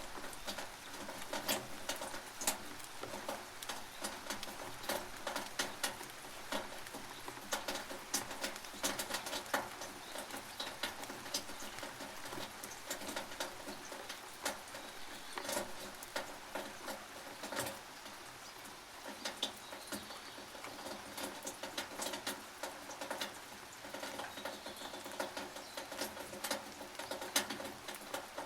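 Rain on a tin roof: a steady hiss of rainfall with many sharp, irregular drops pattering and clicking on the metal.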